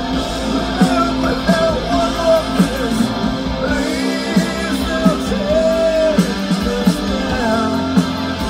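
Live rock band playing a song loud: distorted electric guitars, bass and a steady drum beat, with a held, bending melody line on top, heard from the festival crowd.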